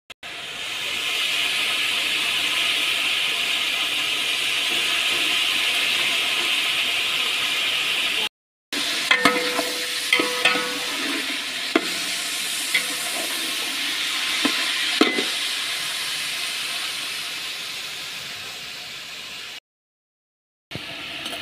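Chicken pieces sizzling in oil in a large aluminium pot, a steady hiss. In the middle stretch a metal slotted spoon taps and scrapes against the pot as the chicken is stirred.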